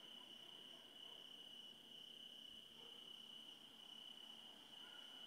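Crickets chirping faintly in a continuous trill.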